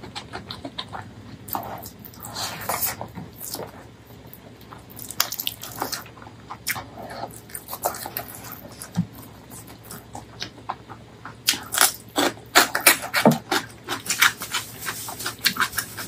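Close-miked chewing and wet lip-smacking of someone eating rice and spicy pork curry by hand: a string of sharp mouth clicks and smacks, coming thick and fast in the last few seconds.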